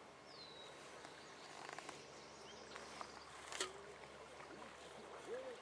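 Quiet outdoor ambience with a short falling chirp near the start, a few faint clicks, and one sharp click about three and a half seconds in.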